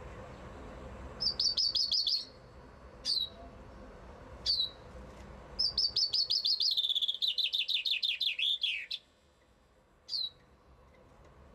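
Common chaffinch singing: a short burst of rapid trilled notes about a second in, a few single downslurred notes, then a full song about halfway through, a fast trill that drops into lower descending phrases and ends in a flourish.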